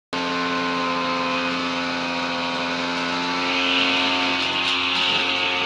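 Shoulder-strap brush cutter (grass trimmer) running steadily at high speed, with a hissier edge to the sound from about three and a half seconds in.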